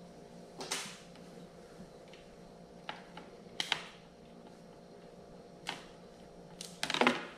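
Scattered light clicks and rustles of a coiled speaker wiring harness being handled and unwound, its plastic connectors and cable tapping together, with a quick run of clicks near the end.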